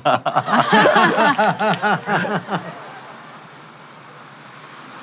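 A person's voice for about the first two and a half seconds, then a steady background hum of outdoor ambience, like distant traffic.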